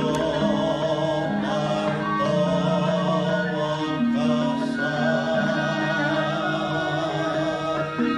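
Javanese gamelan music, with a voice singing long held notes that step from pitch to pitch over steadily ringing metallophone tones and occasional struck accents.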